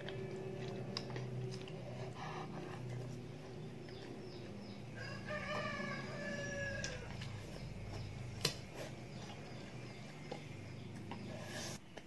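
A rooster crowing once about five seconds in, a drawn-out call of about two seconds that falls away at the end, over a steady low hum. Near the middle, a spoon knocks sharply against the noodle bowl.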